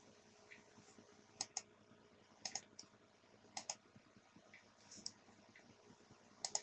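Faint computer mouse clicks: about five short clusters of two or three sharp clicks, spread a second or so apart, over a faint steady hiss.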